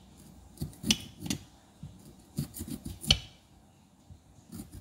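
Kitchen knife cutting through a raw red potato: a handful of short, sharp knocks and clicks of the blade, the loudest about three seconds in.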